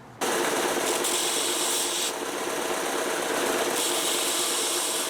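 Steady, continuous grinding of metal with a faint motor hum under it: the zinc plating being taken off the head of a steel wood screw to expose bare steel. It starts abruptly just after the beginning and runs evenly, without separate strokes.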